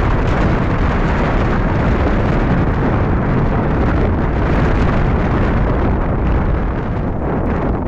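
Loud, steady wind buffeting the microphone, a rough rumbling rush strongest in the low end, with no engine tone in it.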